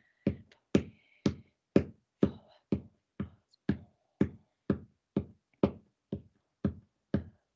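A steady beat of sharp knocks, about two a second, keeping time for unaccompanied children's singing, which is faint beneath it.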